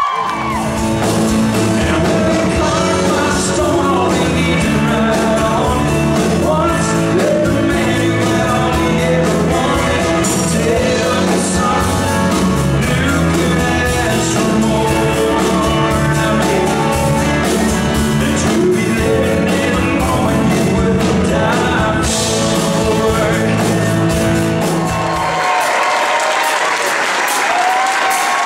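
A song with singing over a full band with a steady beat. About 25 seconds in the band drops out and an audience applauds and cheers.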